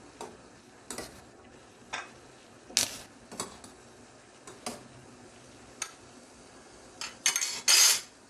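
Steel ladle clinking and scraping against a stainless saucepan as tomatoes are scooped out of boiling water, over the steady hiss of the rolling boil. The knocks come about once a second, with a louder run of clatters near the end.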